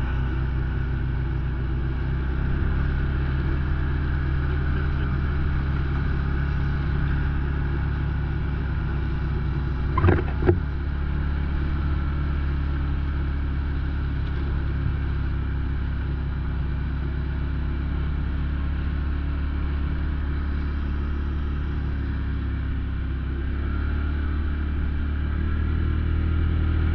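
Engine of the vehicle carrying the rider, droning steadily at cruising speed over snow, with two sharp knocks about ten seconds in. It grows louder near the end as the vehicle speeds up.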